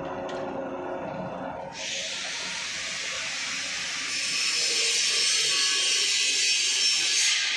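Flat bar straightening machine running: a steady motor and roller hum, then about two seconds in a loud, even hissing scrape starts as a steel flat bar is drawn through the rollers, growing louder after about four seconds.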